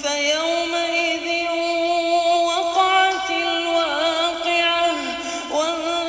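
Melodic Quran recitation: a single voice chanting in long held notes that waver and glide, with short breaks between phrases.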